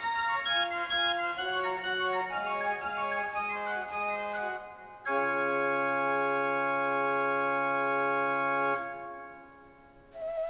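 Pipe organ played by hand: a melody moving over held notes, then one long sustained chord that fades out about nine seconds in.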